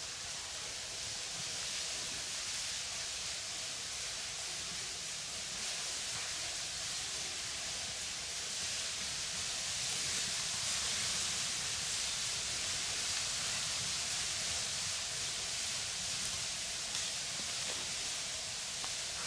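Steady, even hiss with no distinct sounds in it, slightly louder around the middle.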